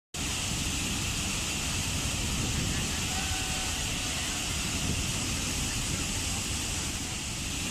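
Waterfall: water falling in a steady, unbroken rush, with a deep rumble underneath and a hiss on top, starting a moment after the start.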